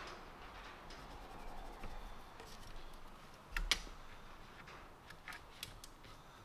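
Pencil marking plywood with a tape measure held against it: quiet scratching and small clicks, with one sharper tap a little past halfway.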